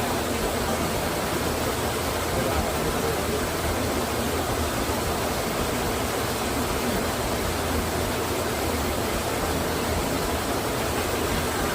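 Steady rush of water falling at Mo Paeng Waterfall, an even unbroken roar at constant level.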